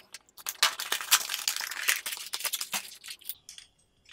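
An Intel Core i5-10400 processor's cardboard retail box being opened and unpacked: a dense run of crackling, scraping and tapping from the cardboard and plastic packaging being handled. It dies down about three seconds in.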